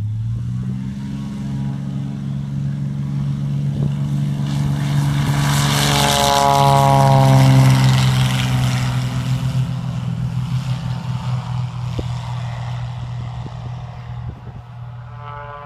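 XtremeAir Sbach 342 aerobatic plane's piston engine and propeller at full power during a low, fast pass: the drone builds to a peak about halfway, its pitch drops as the plane goes by, then it fades away.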